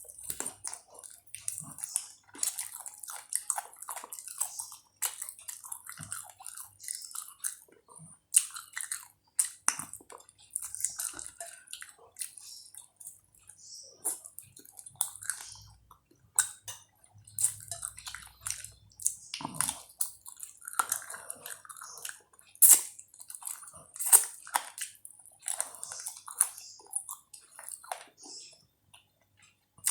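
A person eating chicken feet cooked in spicy soy sauce, biting and chewing with irregular clicking mouth sounds.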